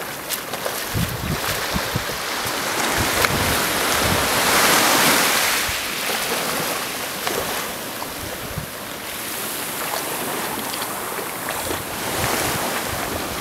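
Small waves washing in along the shore, swelling about four seconds in and again near the end, with wind buffeting the microphone.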